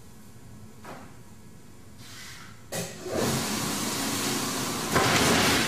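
Flatbed die cutter starting up and running a test cutting pass. After a quiet opening with one faint click, the machine starts suddenly about three seconds in and runs with a loud, steady mechanical noise. A sharp knock about five seconds in is followed by its loudest stretch.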